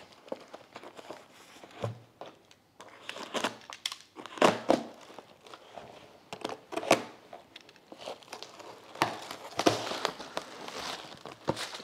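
A flat cardboard shipping box being opened by hand: packing tape peeled and the cardboard lid pulled up, giving irregular crinkles, scrapes and small clicks, with a longer tearing rustle near the end.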